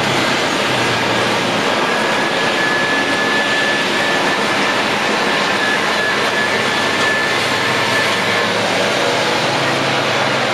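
Airbus A320's IAE V2500 turbofan engines running at idle thrust: a steady loud rushing noise with a faint high whine.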